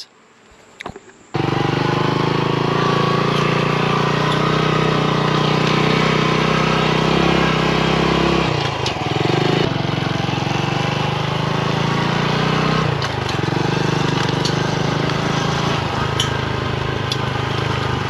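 Honda Trail 125's single-cylinder four-stroke engine running as the motorcycle is ridden. It comes in suddenly about a second in, after a moment of quiet with a few small clicks. The engine note breaks and changes pitch twice, at about eight and a half and thirteen seconds in, as at gear changes.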